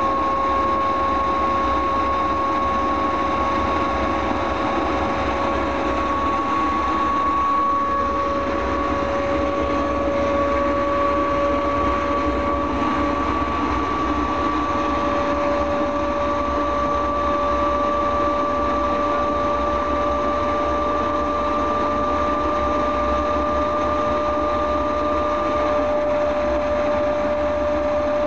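Klimov VK-1 centrifugal-flow turbojet running steadily on a ground test stand: a loud, even jet rush with a high whine that slowly creeps up in pitch.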